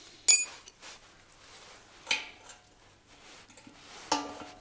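Small metal parts clinking and clicking by hand as a motorcycle fuel tap is refitted and tightened under the tank. A sharp ringing clink comes just after the start, with softer clicks about two and four seconds in.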